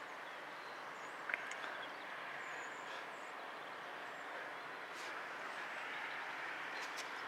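Diesel freight locomotive approaching in the distance: a faint, steady rumble and hiss that grows slightly louder, with a few short high chirps over it.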